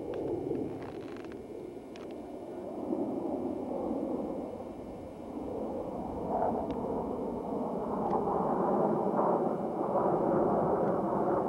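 Rumble of a formation of jet aircraft, a rushing noise that builds up from about halfway through and stays loud to the end, with a faint steady hum over it near the end.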